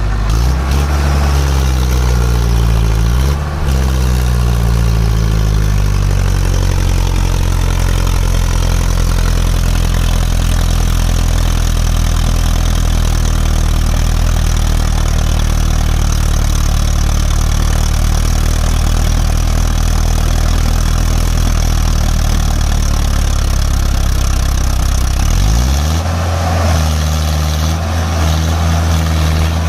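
Mahindra Arjun 555 tractor's diesel engine running under heavy load while towing three tractors tied behind it. Its pitch dips and wavers in the first few seconds, holds steady, then rises about 25 seconds in.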